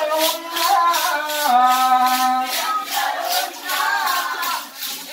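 Devotional bhajan music: a melody, likely sung, over a steady beat of rattling, shaker-like percussion, about two strokes a second.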